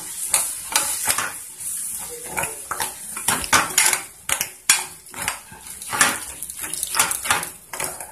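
Metal spoon scraping and knocking against a metal pan, stirring a thick tomato masala paste in short strokes about twice a second.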